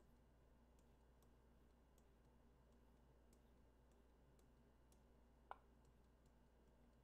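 Near silence with faint, scattered ticks from a stylus tapping on a pen tablet while drawing, and one sharper click about five and a half seconds in.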